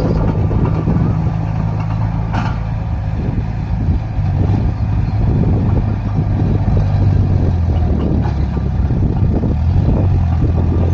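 A heavy vehicle's engine running steadily with a low, even drone, with irregular clattering over it and one sharp knock about two and a half seconds in.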